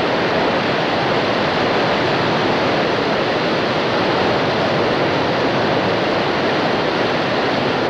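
Water released from the dam's outlet valve, jetting out as a powerful spray with a steady, loud rush.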